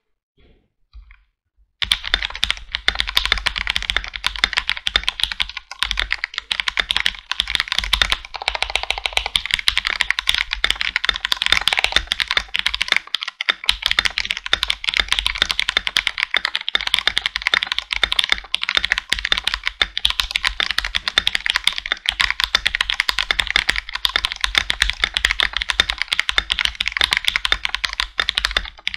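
Fast, continuous typing on a Hello Ganss GS87D tenkeyless mechanical keyboard with lubed Cherry MX Red linear switches, starting about two seconds in. It is a dense run of key presses and returns, with no case ping.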